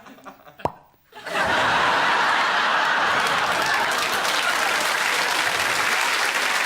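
Studio audience breaking into loud, sustained applause about a second in, after a moment of scattered chuckling.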